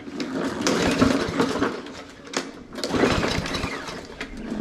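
Push mower's small engine being pull-started by its recoil cord, cranking over in two pulls about three seconds apart without firing. It doesn't even sound like it's trying to start, which the owner takes for a lack of spark.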